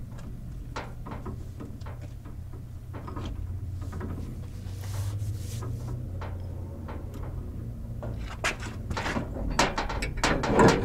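Scattered clicks and knocks of hands handling wires, washers and small hardware at the inverter terminals, growing busier in the last few seconds with one louder knock near the end, over a steady low hum.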